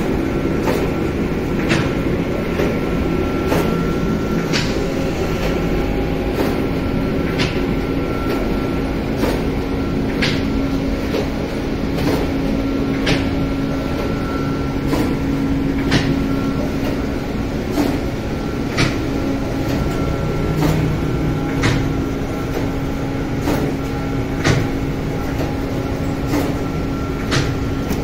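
Automatic flatbread-baking line running: a steady mechanical rumble and hum, with a sharp click about once a second.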